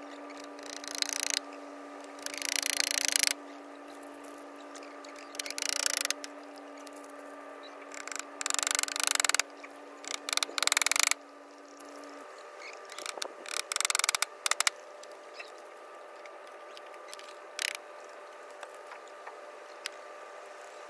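A hand tool working on a wooden crate in short rasping, clicking bursts, about seven of them, each under a second or so, with longer gaps after the middle and a single short one near the end.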